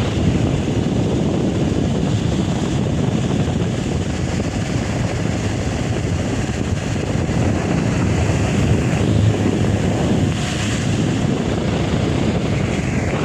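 Delta Gold 50 cm wall fan running, its airflow blowing across the microphone as a steady rushing wind noise.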